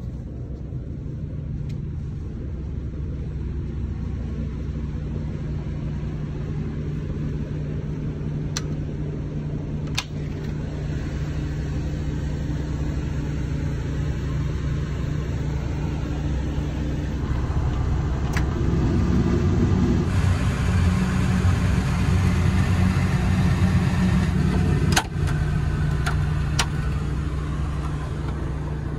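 Steady low rumble of engine and road noise inside the cabin of a moving overnight highway bus, growing louder in the second half, with a few sharp clicks.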